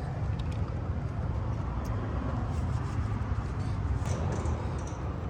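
A steady low rumble with a few faint light clicks over it.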